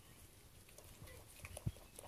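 Goat nibbling and chewing sliced squash from a bowl: faint, scattered crunching and small clicks, with one dull knock about one and a half seconds in.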